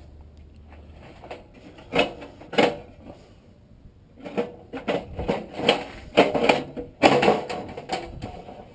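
Metal clicks and knocks from handling a furnace blower motor and its squirrel-cage wheel. There are two sharp knocks about two seconds in, then a rapid run of rattling clicks in the middle.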